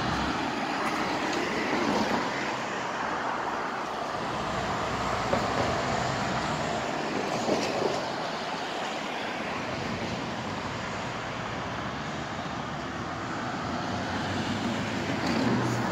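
City street traffic noise: a steady rush of passing vehicles, with a few faint knocks.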